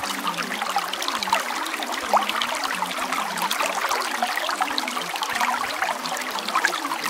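Running water trickling and babbling steadily, like a small stream, with many small splashes and plinks.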